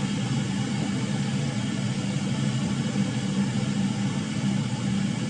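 Road vehicle's engine running with a steady low drone.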